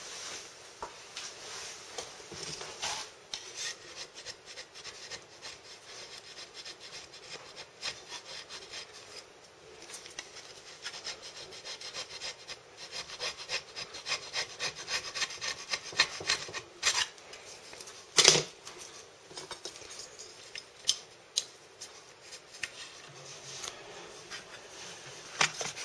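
A flat scraper blade scraping along the rim of an aluminium Puch 250 SGS crankcase half in many short strokes, with a couple of sharper knocks about two-thirds of the way through.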